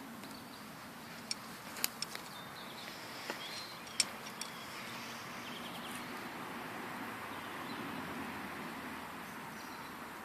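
Wild birds singing and chirping faintly over a steady outdoor hiss, with a few sharp clicks in the first half.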